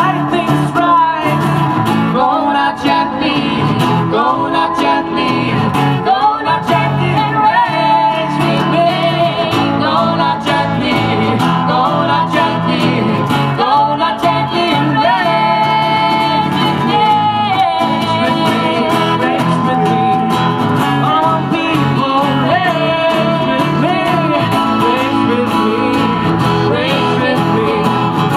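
A live song: voices singing into microphones over strummed acoustic guitars.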